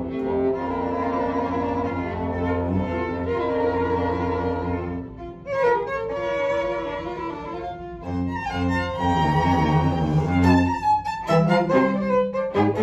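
A string quartet of violins and cello playing a classical piece together, with sustained bowed chords and a brief break about five seconds in. Near the end the playing turns to short, separated bow strokes.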